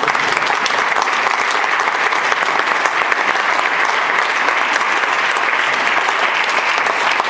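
Audience applauding: steady, dense clapping from many hands that holds at an even level.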